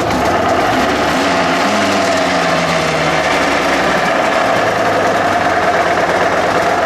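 Aprilia RS125's 125 cc two-stroke single-cylinder engine idling, its idle speed wavering a little. The owner suspects the engine is making an abnormal noise.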